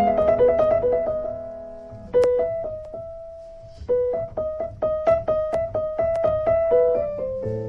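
Background piano music: single notes played in a slow melody, with two short pauses where the notes fade out.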